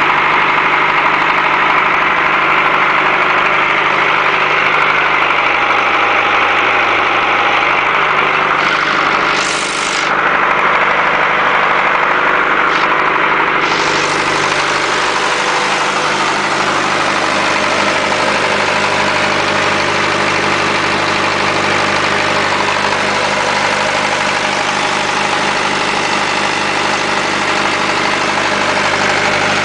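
100 kW diesel generator running steadily under load, a constant engine drone. A high hiss over it drops away for a few seconds about a third of the way through, then returns.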